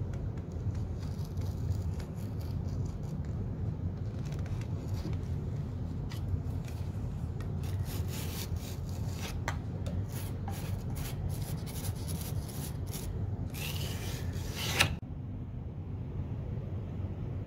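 Metal putty knife scraping over a painted wooden panel, working wood filler into a joint: a run of short scrapes that grows denser, ending in a louder burst of scraping that stops suddenly near the end. A steady low rumble lies underneath.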